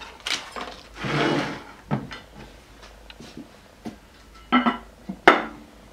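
Knocks and clicks from hands working the geared headstock of a Standard Modern 10-inch lathe, with a rustling scrape about a second in, then two sharp metal clanks with a brief ring near the end.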